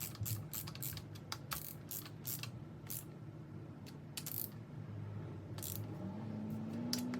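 Ratchet of a torque wrench clicking in short irregular strokes as connecting-rod cap bolts are tightened down. A low hum comes in about six seconds in.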